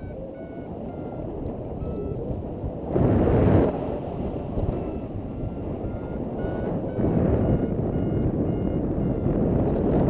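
Wind buffeting the action camera's microphone in flight, gusting louder about three seconds in and again near the end. Underneath, a paragliding variometer gives faint short beeps that shift up and down in pitch, signalling climb or sink.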